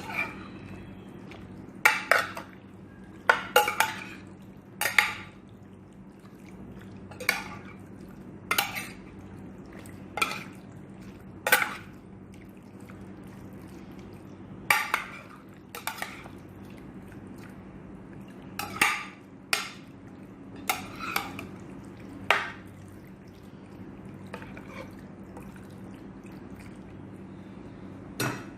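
Raw chicken breast being mixed by gloved hands in a bowl of yogurt-and-spice marinade: irregular knocks and clinks against the bowl about every one to two seconds, over a steady low hum.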